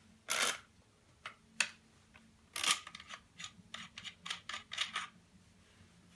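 Benelli Nova pump shotgun being handled as its magazine cap is unscrewed and taken off. There is a short scrape about half a second in, then a couple of single clicks, then a string of light clicks and knocks from about two and a half to five seconds.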